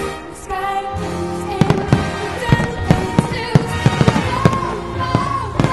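Aerial firework shells bursting in a rapid, irregular string of sharp bangs over pyromusical show music. The bursts start about a second and a half in.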